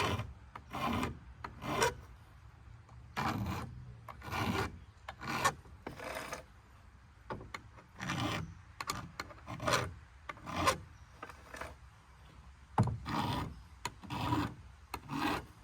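Hand file rasping across the teeth of a chainsaw chain in separate strokes, roughly one a second, with a short pause a little past the middle. The brand-new chain is being filed because it would not cut right out of the box.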